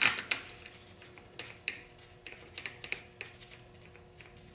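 A scattered series of light clicks and taps, loudest right at the start, from the aluminium extension housing being handled and seated against a T5 transmission case.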